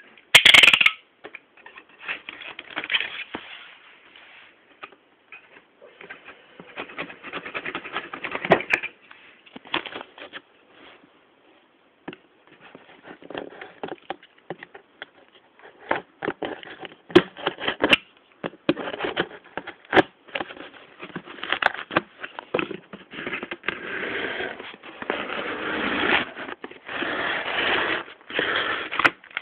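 Cardboard box and packing material being cut open and handled: irregular scraping, rustling and crinkling with many sharp clicks and knocks. A loud crackle comes about half a second in.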